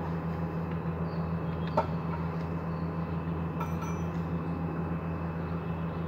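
A steady low hum of unseen running machinery, with a single sharp click about two seconds in and a short metallic clink just past the middle as the metal cable-gland parts are handled.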